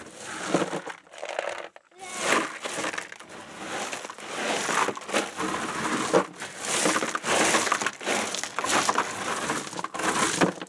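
Loose drainage rocks crunching and clattering as they are pushed around and levelled by hand in the bottom of a plastic-lined chest freezer, in an irregular run of scrapes.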